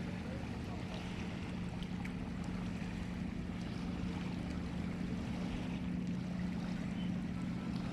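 A boat's engine running at a steady pitch, with the rush of river water around the hull.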